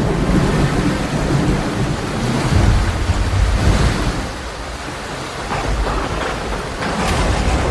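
Storm noise: heavy rain over a deep, shifting rumble that eases for a moment about halfway through and comes back. A few sharp hits sound near the end.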